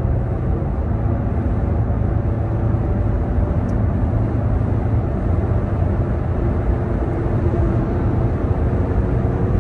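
Toyota Tacoma's 3.5-litre V6 accelerating at highway speed, heard from inside the cab over steady road and wind noise. The engine itself stays fairly quiet while the exhaust note comes up.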